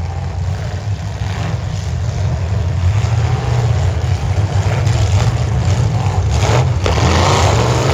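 Several demolition derby cars' engines running loud, with revving that builds toward the end.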